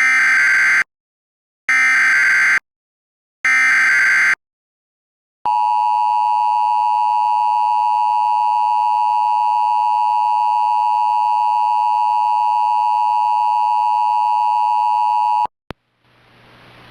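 Emergency Alert System tones: three bursts of SAME digital header data, each just under a second with short gaps, then the steady two-tone EAS attention signal for about ten seconds, which cuts off sharply. Near the end a hiss fades in.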